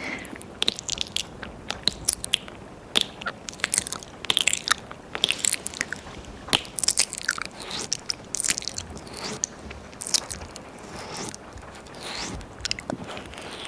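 Close-up wet mouth sounds: tongue licking and lip smacks on the ear of a 3Dio binaural microphone, an irregular run of sharp wet clicks and smacks.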